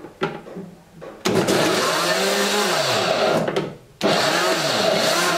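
Countertop blender chopping cucumber chunks. After a couple of clicks from its controls, the motor starts about a second in, its pitch sagging and recovering as the blades bite into the pieces. It cuts out briefly near four seconds, then starts again.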